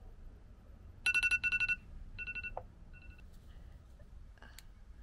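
Smartphone timer alarm beeping in quick runs of electronic beeps about a second in, signalling that the cup ramen's cooking time is up. The beeping stops about two seconds later, leaving a few light clicks near the end.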